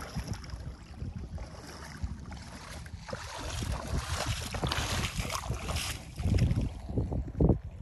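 Pro Boat Sonic Wake 36 RC boat running away from shore across the water, a hiss that swells in the middle and fades as the boat gets farther off. Wind buffets the microphone throughout, with heavier gusts near the end.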